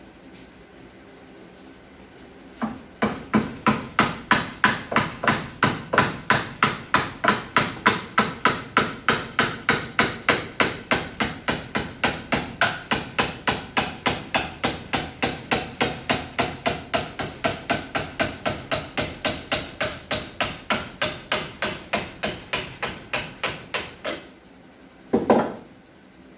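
Hammer striking metal in a steady rhythm, about three blows a second for some twenty seconds, each blow leaving a faint metallic ring. It stops, and one duller knock follows near the end.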